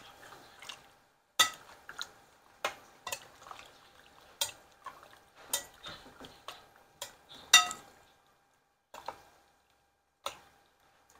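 Large metal spoon clinking and scraping against a glass mixing bowl while stirring raw chicken pieces in their marinade. The knocks are irregular, about ten of them, and some ring briefly; the loudest comes about two-thirds of the way in.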